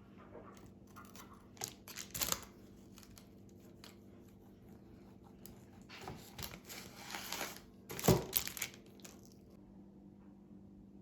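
Rustling and tearing sounds in short bursts: one about two seconds in, a longer stretch around six to seven seconds, and the loudest about eight seconds in, over a faint steady low hum.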